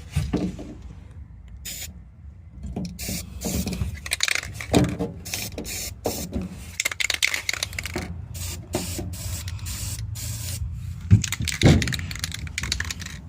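Hand tools working bolts out of and into a metal panel: irregular clicking, tapping and scraping of tool and bolt on metal, with two sharper knocks near the end.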